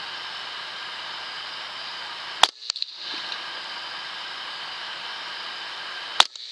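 Two air rifle shots about four seconds apart, each a single sharp crack over a steady hiss, the first followed by a couple of smaller clicks.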